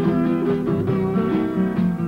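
Music played on plucked string instruments: a quick, steady tune of picked and strummed notes.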